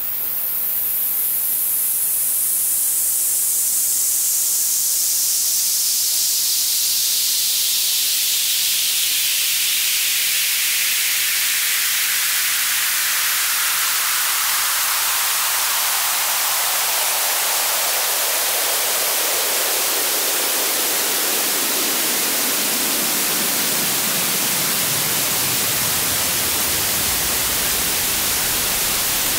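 Synthesized white-noise sweep run through FL Studio's Fruity Free Filter, its cutoff automated by an envelope. The hiss starts thin and high and gradually fills in lower, deeper noise over the half minute, the sweep effect used as a build-up in electronic music.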